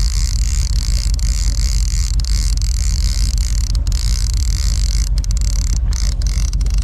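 Charter fishing boat's engine running steadily at trolling speed, a constant low rumble with a steady hiss of water and wind over it.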